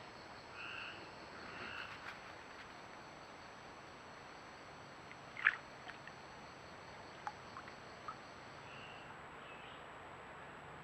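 Frogs calling along a creek: short croaks early on and again near the end, over a steady background hiss, with a sharp brief call about five and a half seconds in.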